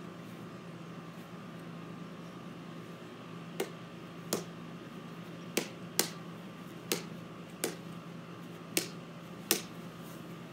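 Plastic wiffle ball being hit straight up off a paddle again and again: eight sharp clicks at uneven spacing, starting about three and a half seconds in.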